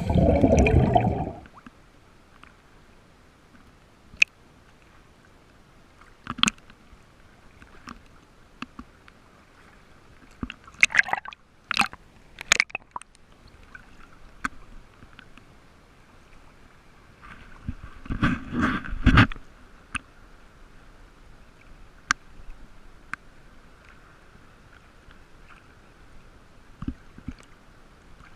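Water gurgling and sloshing around a scuba diver, with a loud burst in the first second and short clusters of bubbling or splashing about eleven and eighteen seconds in. Scattered clicks fall between them.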